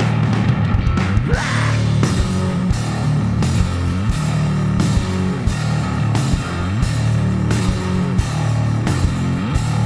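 A rock band playing live: distorted electric guitar and bass over drums hitting a steady beat.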